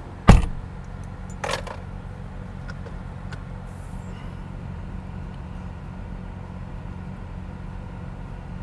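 A single loud thump, typical of a car door shutting, followed by a smaller click about a second later. Under them the car's engine runs with a steady low hum, heard from inside the cabin.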